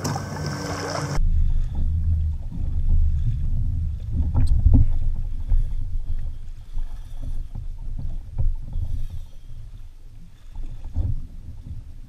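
Low, fluctuating rumble of wind and water around a fishing kayak at sea, with a few scattered knocks; the sharpest knock comes about four and a half seconds in.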